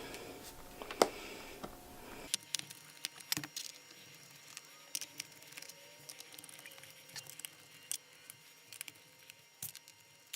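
Small screwdriver clicking and ticking irregularly against the screws of a 2012 MacBook Pro's bottom case as they are backed out, with the loudest click about a second in.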